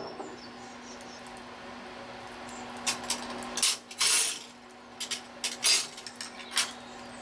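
A metal fork clinking and scraping against ceramic plates as chicken strips are turned in beaten egg and breadcrumbs: a run of short clinks beginning about three seconds in, with a longer scrape about four seconds in.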